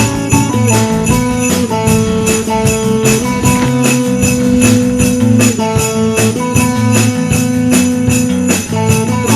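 Sleigh bells shaken in a steady rhythm over a Christmas pop backing track of held chords and a bass line.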